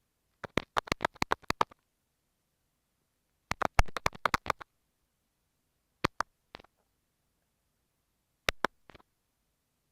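Kinetic sand slime squished against an earphone microphone, heard very close up: two runs of quick sticky crackling clicks, then a few single pops and pairs of pops with gaps between.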